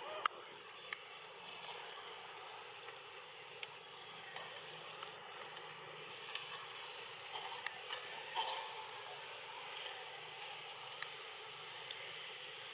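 Steady high outdoor hiss, like insects, with scattered sharp clicks and a few brief high chirps; no monkey cry is heard.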